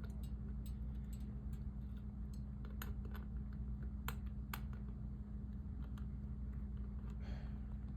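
Scattered small clicks and taps of a screwdriver working loose the screws that hold a ceiling fan's switch cap, with a short scrape near the end.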